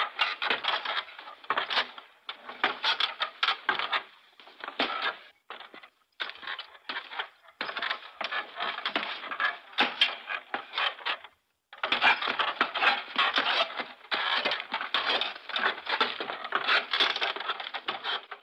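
Footsteps on wooden boards: a dense run of creaks and clicks underfoot, broken by short pauses twice, stopping suddenly near the end.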